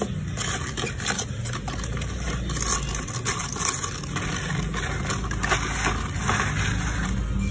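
Close handling noise: rustling and scraping with scattered light knocks as a hand and arm move right next to the phone's microphone, over a steady low hum.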